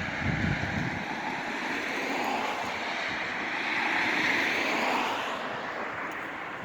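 A passing vehicle's rushing noise, swelling to a peak about four seconds in and then fading away.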